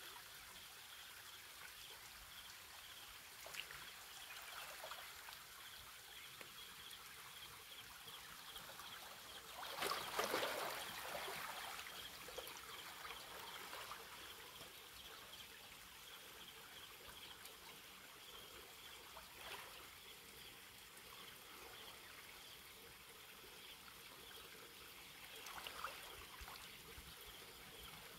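Small waves of calm sea water lapping faintly against shoreline rocks, with a louder slosh about ten seconds in and a few softer ones later.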